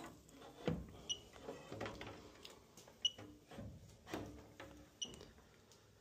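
Fieldpiece DRX3 refrigerant leak detector giving three short high beeps about two seconds apart while its probe is swept around an evaporator coil, its display at zero with no refrigerant picked up. Soft knocks and rustles from the probe and hands being moved around the coil.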